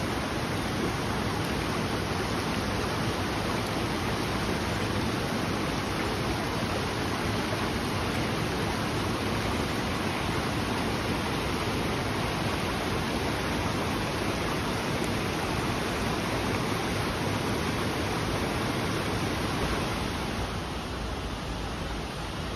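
Rushing water of a mountain stream and small waterfall, a steady even noise that grows a little quieter near the end.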